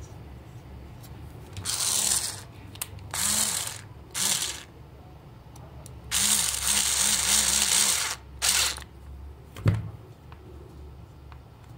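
Cordless electric screwdriver driving small screws into a plastic toy remote-controller housing in five short runs, the longest about two seconds with a rapid ratcheting in it. A single knock comes near the end.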